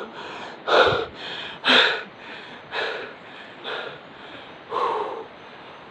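A man panting heavily close to the microphone, one loud breath about every second, out of breath from climbing a steep uphill trail.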